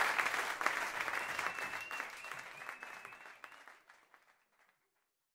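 Audience applauding, fading away over about four seconds into silence.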